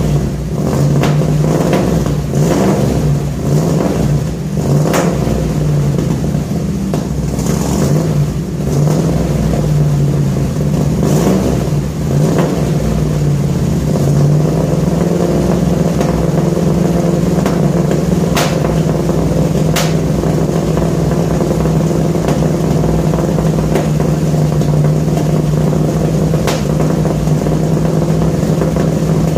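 1966 Ford F100's engine running through new headers and side-exit exhaust pipes, heard at the pipe outlet. Its speed varies over the first dozen seconds, then holds steady, with a few sharp ticks over it.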